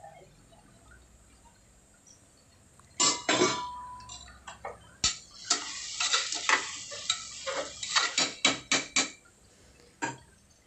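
Steel spatula scraping and clanking against the inside of an aluminium pressure cooker as onions and tomatoes frying in oil are stirred. The strokes come in a quick, uneven run from about three seconds in to about nine seconds, with one more knock near the end.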